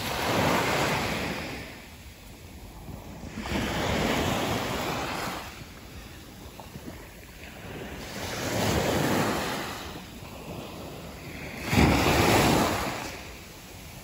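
Small waves washing up onto a sandy beach: four swells of surf that rise and fall, the loudest about twelve seconds in.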